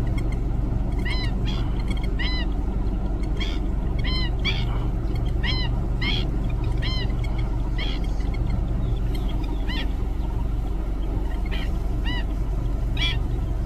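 Black-winged stilts giving short, sharp yelping calls, each rising and falling in pitch, repeated irregularly about once a second. A steady low hum runs underneath.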